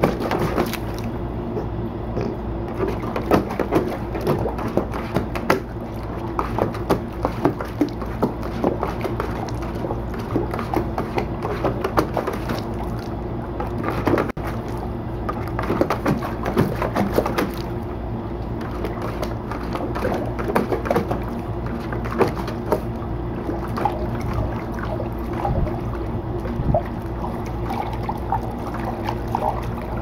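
A dog pawing and splashing water in a shallow plastic kiddie pool: irregular splashes and sloshing, over a steady low hum.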